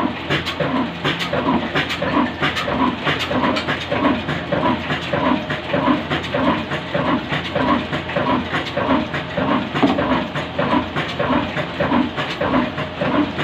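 Nafees 26 HP slow-speed diesel engine running steadily: a rhythmic chug about twice a second, with sharp clattering clicks from the valve gear over a constant low hum.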